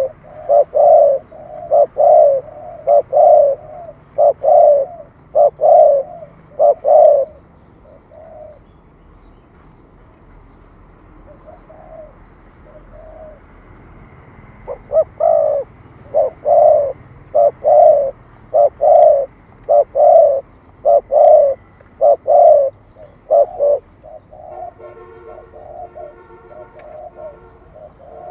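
Spotted dove cooing in rapid runs of loud, low coos, the 'thổ thúc gù' urging coo used to rouse decoy doves. It pauses for several seconds in the middle with only a few faint notes, then starts again and ends with softer notes.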